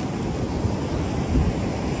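Steady wash of ocean surf on the beach, with a short low rumble of wind on the microphone about a second and a half in.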